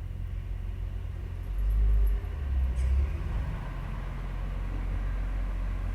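Deep, steady rumble from a film soundtrack played through the VIVIBRIGHT F30 projector's built-in speaker, swelling louder for about a second and a half near the middle.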